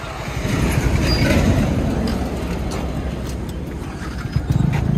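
Motorcycle engine running on the road with wind and road rumble, getting louder about half a second in.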